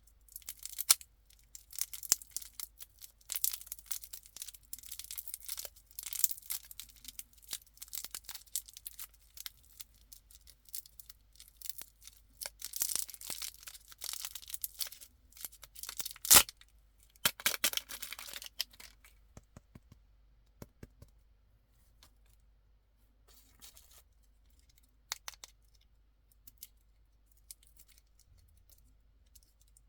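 Candy wrappers and packaging being torn open and crinkled, in dense crackling bursts for most of the first twenty seconds, with one sharp click about sixteen seconds in. After that there are only sparse light clicks and rustles.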